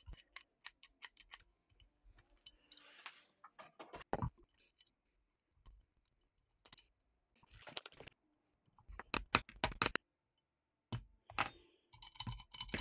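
Small metal parts clicking and rattling as a magazine release is fitted by hand into an airsoft M4 lower receiver: irregular clusters of sharp clicks with short pauses between them.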